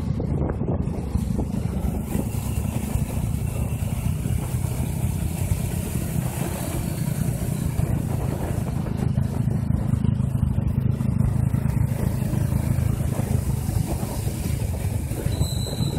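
Honda C70 motorcycles' small single-cylinder four-stroke engines running steadily while riding along a wet road, a continuous low drone. A short high beep sounds near the end.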